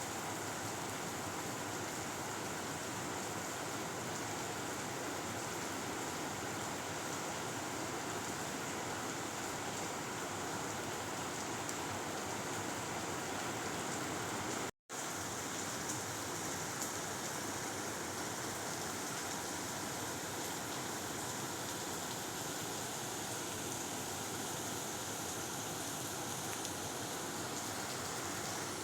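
Steady rain falling, an even hiss with no thunder. It cuts out completely for a split second about halfway through, then carries on unchanged.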